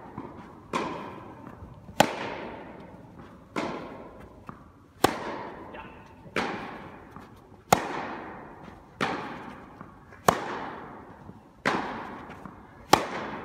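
Tennis rally: tennis balls struck by rackets about every 1.3 seconds, louder and fainter strikes alternating, each sharp pop echoing in a large indoor tennis hall.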